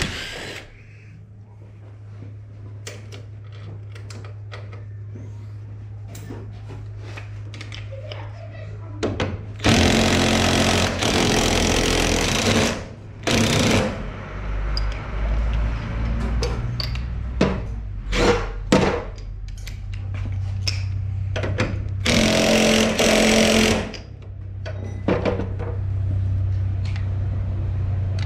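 Power tool run in three bursts, about three seconds, half a second and two seconds long, over a steady low hum, with clicks and knocks of tools on metal between them during gearbox disassembly.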